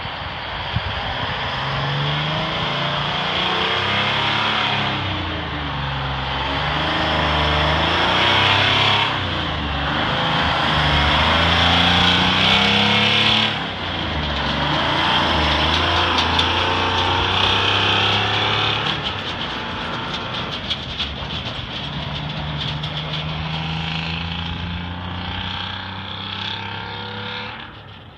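Kenworth road train's 12V71 Detroit Diesel two-stroke V12 pulling away under load, its pitch climbing and dropping back several times through the gear changes. It passes close and then fades into the distance.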